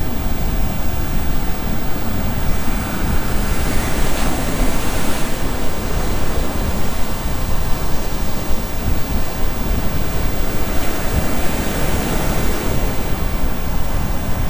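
Sea surf washing onto a sandy beach, a steady rushing hiss with a brighter swell around four to five seconds in, while wind buffets the microphone with a low rumble.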